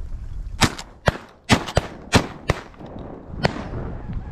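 A volley of about six shotgun shots fired in quick succession at ducks over about three seconds, with some shots only a fraction of a second apart.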